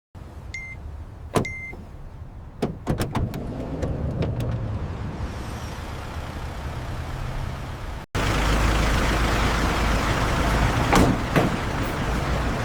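Warehouse machinery running: two short electronic beeps near the start and a few clicks over a steady mechanical noise. After an abrupt cut about eight seconds in, a louder steady motor hum follows, with a couple of knocks.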